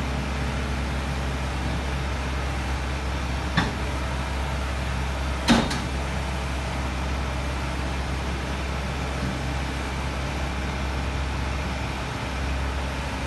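LiuGong 906F mini excavator's diesel engine idling steadily, with two sharp knocks about three and a half and five and a half seconds in.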